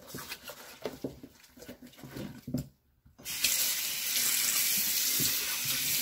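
Kitchen tap turned on, water running steadily into a stainless steel sink and over a raw chicken, starting a little over three seconds in after a brief silence. Before that, a few soft knocks and rubs as the wet chicken is handled in the sink.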